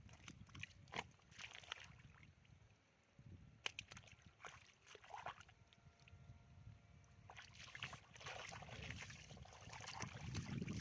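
Faint sloshing and splashing of shallow muddy water, with scattered small crackles and splats.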